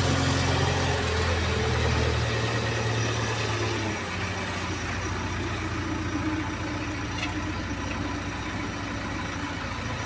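JCB 3DX backhoe loader's diesel engine heard from inside the cab, running. Its note steps up about a second in, drops quieter about four seconds in, then runs steadily.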